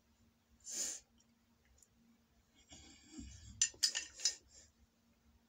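Wooden chopsticks clicking against a plate: a quick cluster of sharp clicks a little past halfway through, after a short breathy puff about a second in.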